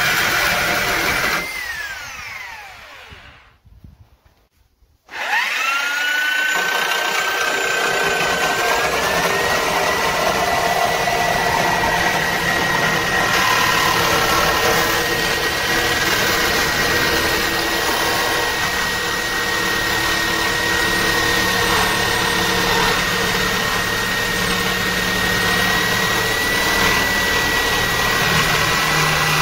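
Reciprocating saw cutting through a van's metal roof strengthening beam. It winds down and stops about a second and a half in, is silent for a moment, then starts again about five seconds in, its whine rising and settling into a steady high note as it cuts on.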